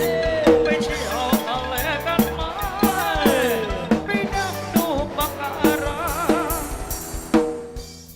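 Instrumental song outro: a steady drum beat under a wavering, vibrato melody line, fading out near the end.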